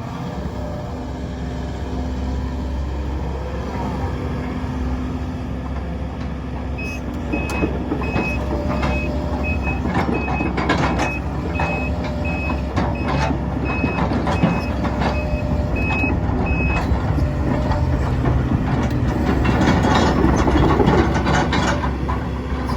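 Link-Belt LBX 160X2 track excavator running, then travelling on its tracks: a steady engine drone, with the travel alarm beeping about twice a second for roughly ten seconds and the tracks clanking and rattling. The travel noise gets busier towards the end as the machine picks up speed.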